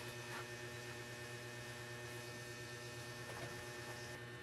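Quiet, steady low electrical hum with a couple of faint ticks.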